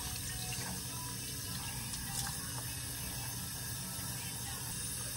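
Bathroom faucet running a steady stream into the sink basin, with a few faint splashes as water is scooped up by hand to wash the face.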